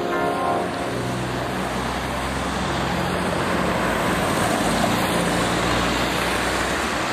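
Steady road traffic noise, the running of cars and other vehicles on a city street. The tail of a piece of music dies away in the first second.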